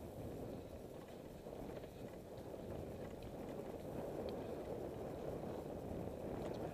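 Tandem bicycle riding over a rough, unsurfaced bridleway: a steady rumble and rattle of tyres on the stony track, with a few faint ticks.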